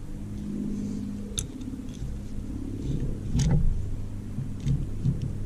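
A steady low mechanical hum, with a few light clicks and knocks of handling about a second and a half in and past the middle.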